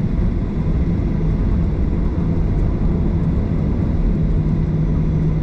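Jet airliner cabin noise while taxiing: a steady low rumble from the engines at low power, with a constant hum running through it.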